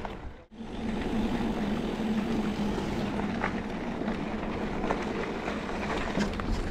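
Electric mountain bike being ridden: a steady hum from the motor under rough noise from the ride, with scattered clicks and rattles. The sound drops out briefly about half a second in.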